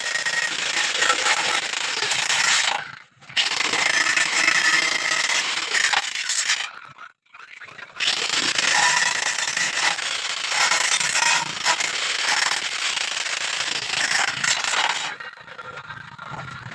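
Electric arc welding crackling steadily as a bead is run, in three long stretches: the arc breaks off briefly about three seconds in and again for about a second around seven seconds in, then stops near the end.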